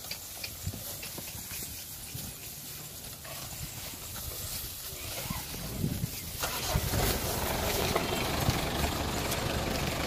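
A large flock of goats moving on foot, with hooves shuffling and clicking and a few faint calls. About two-thirds of the way in it grows louder, with a low steady rumble under it.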